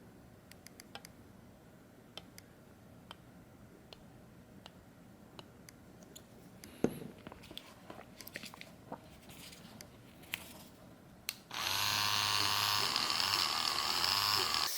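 Light scattered clicks of handling a small plastic part. About three seconds before the end, a small electric polishing tool starts up and runs steadily, its pitch wavering as it works against the part.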